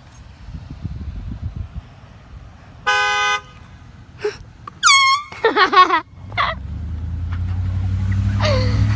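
A car horn honks once, briefly, about three seconds in. Loud yelling follows a couple of seconds later. Then a car engine runs, growing steadily louder toward the end, with more shouting over it.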